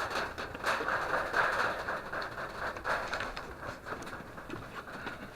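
Water dripping and splattering inside a rock cave during heavy runoff, an irregular patter of drops.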